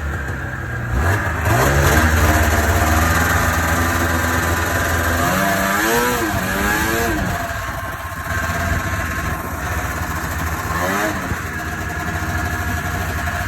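Vintage Ski-Doo Blizzard snowmobile's two-stroke engine running and being revved. Its pitch climbs about a second in, rises and falls again a few times around the middle, and rises briefly once more near the end.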